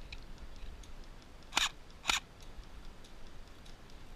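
Two sharp snaps about half a second apart, each brief, over faint scattered ticking.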